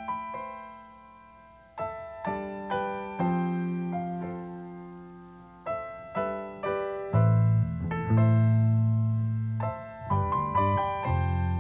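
Slow solo piano music: single notes and chords struck and left to ring out, with deep bass notes coming in about seven seconds in.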